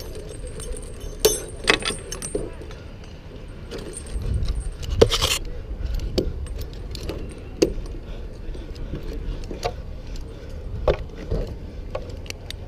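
Lineman's metal climbing and rigging hardware (chains, snaps and hooks) clinking and jangling in irregular sharp clicks and knocks as he works on the wooden pole. A louder low rumble rises about four to five seconds in.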